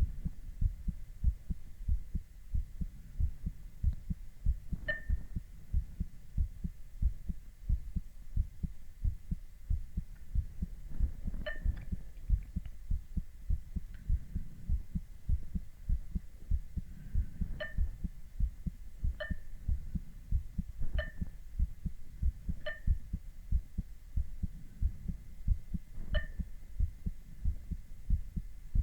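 A man's heartbeat heard through a stethoscope: a steady run of low lub-dub thuds under a faint hum. Short high beeps come now and then at uneven intervals.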